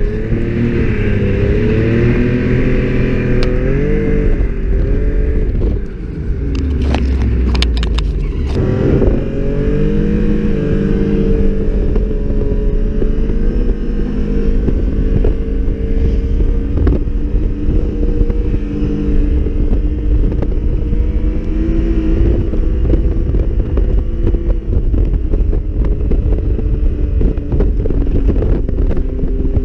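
Snowmobile engine running hard under way, its pitch rising and falling as the throttle changes, with a brief easing off about six seconds in.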